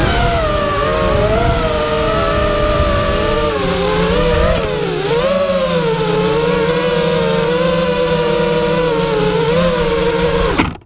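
ZMR250 FPV quadcopter's four 2206 brushless motors spinning 5-inch three-blade props, a loud multi-tone whine whose pitch wavers up and down with the throttle, heard through the onboard camera. Heavy air rumble on the microphone lasts the first four seconds or so, and the whine cuts off suddenly near the end.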